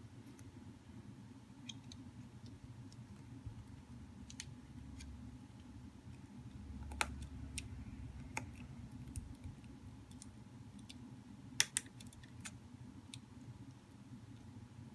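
Scattered small clicks and taps as fingers fit a smartphone's flex cable and press its connectors down into their board sockets. The loudest are two sharp clicks close together about three-quarters of the way through, over a steady low hum.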